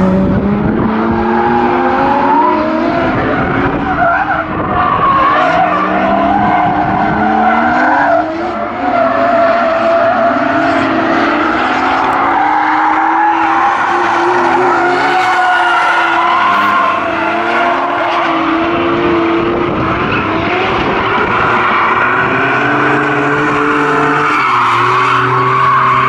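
BMW E30 drift car sliding sideways through bends, its engine revving up and down over and over while the rear tyres squeal.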